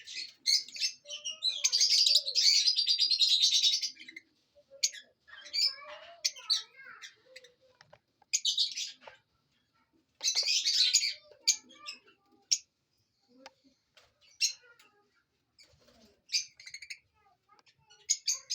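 Pet love birds, small parrots, chattering and chirping in bursts. A long, loud rapid chatter comes about two seconds in, shorter bursts come around the middle, and single sharp chirps fall in between.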